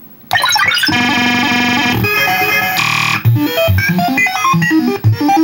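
Circuit-bent toy laser blaster making glitchy electronic sound effects: rapid strings of short beeps that jump about in pitch, starting suddenly just after the start, with a short burst of hiss about three seconds in.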